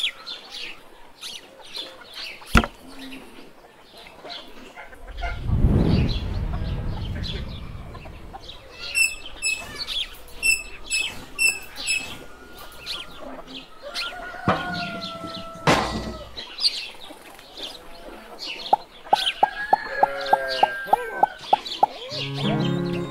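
Chickens clucking and small birds chirping as a farmyard ambience, with a dull thud about six seconds in.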